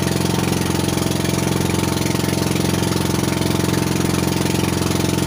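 Small fishing boat's engine running steadily while under way, with an even, unchanging beat.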